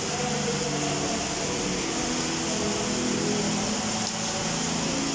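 Heavy rain pouring down on rooftops, a steady, even hiss.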